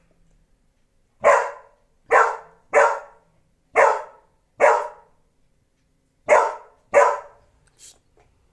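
A dog barking at its own reflection in a mirror: seven short, loud barks, the first five in quick succession, then a pause of about a second and a half before two more, with a faint one at the end.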